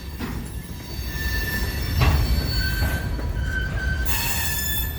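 A train rolling by on the rails with a steady low rumble and a knock about two seconds in. Its wheels squeal in high, steady tones from about three seconds on, loudest near the end.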